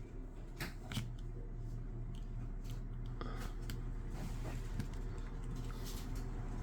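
Scattered light clicks and rustles of a small precision screwdriver and phone parts being handled as the tiny screws of a smartphone's internal cover are driven back in, over a steady low hum.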